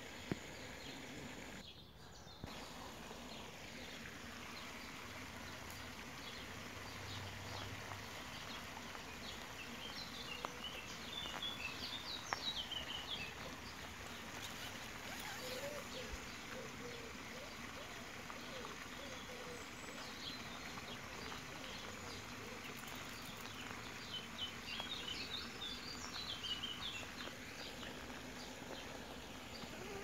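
Dawn chorus recorded on a phone: songbirds singing over a steady background hiss, with bursts of high chirping song about a third of the way in and again near the end, and a lower warbling call in the middle.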